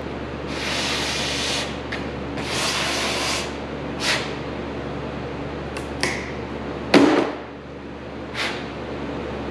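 Two short hissing bursts, each about a second long, then a few light clicks and taps and one loud knock with a brief ring about seven seconds in, over a steady shop hum. These are hand-work sounds from fitting edge trim onto a plastic snowmobile windshield.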